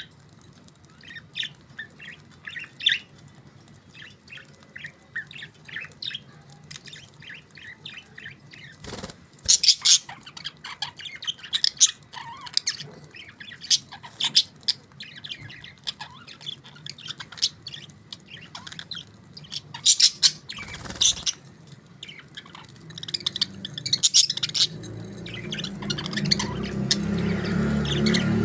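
Budgerigars chirping and squawking in a steady stream of short high calls, with louder bursts now and then. A low rumbling noise builds up near the end.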